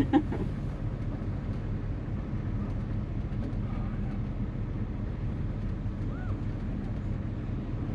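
Steady low rumble of a classic car's engine and road noise while cruising slowly, heard from inside the car.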